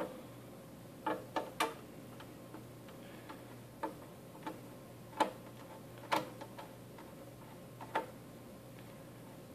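Screwdriver turning a small screw out of the access point's housing: about ten light, irregular clicks and ticks of the bit and screw as the handle is spun by the fingers.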